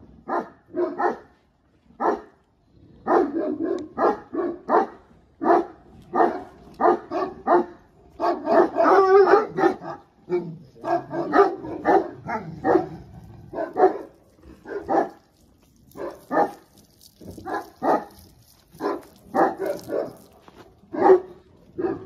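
Large shepherd dogs barking over and over, short deep barks coming about one or two a second, with a denser run of barking about eight seconds in.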